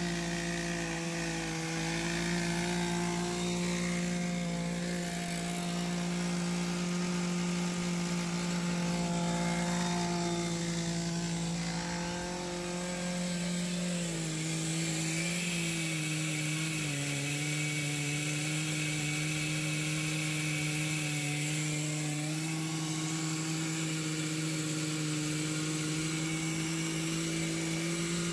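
Stihl MS880 two-stroke chainsaw with a 64-inch bar and skip chain running at full throttle, ripping a slab lengthwise through an oak trunk on an Alaskan chainsaw mill. The engine holds a steady high note under load, with its pitch dipping and wavering briefly about halfway through.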